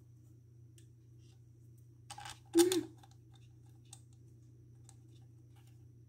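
Faint clicks and a short scrape of a plastic outlet cover plate being handled and fitted against the wall, over a steady low hum. A brief voice sound about two and a half seconds in is the loudest thing.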